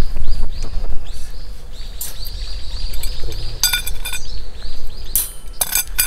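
Stainless-steel rods of a fire pit frame clinking against each other as it is handled, with sharp ringing clinks about three and a half seconds in and again a little after five seconds.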